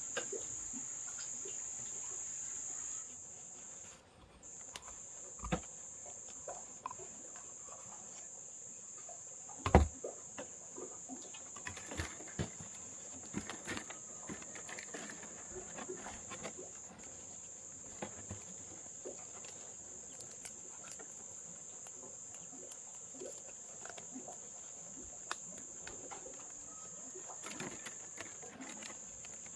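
Steady high-pitched insect trilling throughout, with scattered light knocks and taps; the loudest knock comes about ten seconds in.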